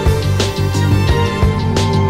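Background music with sustained low notes and regular drum hits.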